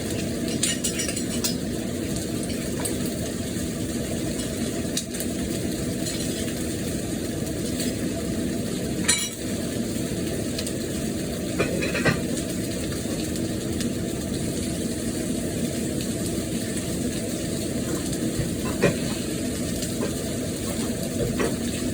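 Marinated chicken frying in oil in a cast iron pan, a steady sizzle, with a few clinks of a utensil against the pan.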